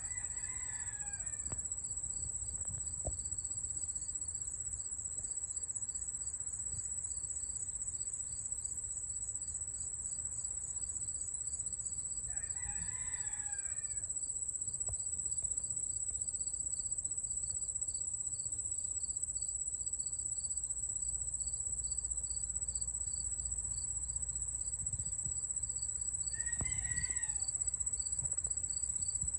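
Insects keep up a steady high-pitched chorus, with a second insect giving an even, pulsing chirp. Over it, a bird gives three long calls about thirteen seconds apart.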